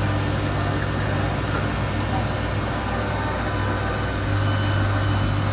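CNC vertical milling machine taking a facing cut across a metal block with a 3-inch face mill: a steady machining sound with a constant high-pitched whine over a low hum.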